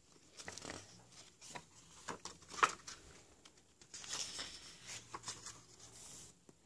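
Pages of a hardcover book being turned by hand: light paper taps and rustles, with a longer rustle of a page sweeping over about four seconds in.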